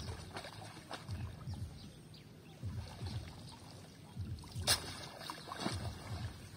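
Cast net being hauled by hand out of a pond, with water splashing and dripping off the mesh. A single sharp click about two-thirds of the way through is the loudest sound.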